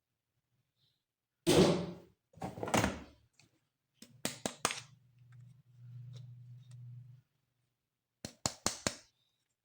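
Plastic toy pieces being handled. There are two heavy thuds about a second apart, then three sharp clicks, a low steady buzz for about three seconds, and four quick clicks near the end.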